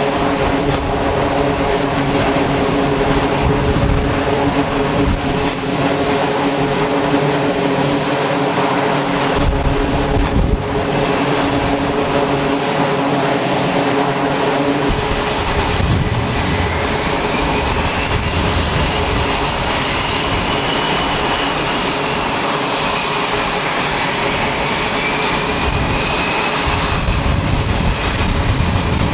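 Twin turboprop engines of a C-2A Greyhound carrier aircraft running steadily with propellers turning, a loud, even drone. About halfway through it gives way to the high whine of an F/A-18 jet's engines, with a tone that slowly wavers up and down.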